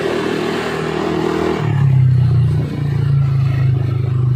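Honda Click 150 scooter's engine running through an MT8 aftermarket exhaust while riding, at a steady higher note that drops suddenly to a lower one about a second and a half in as the throttle is eased off.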